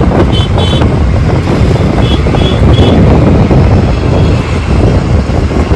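Wind buffeting the microphone on a moving scooter, over the rumble of the scooter and street traffic. A few short, high beeps sound in the first three seconds.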